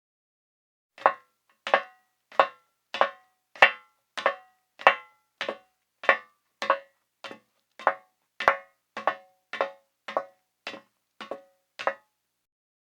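Women's metal heels walking at an even pace: about nineteen sharp clicking steps, roughly one and a half a second, each with a faint tap just before the main strike.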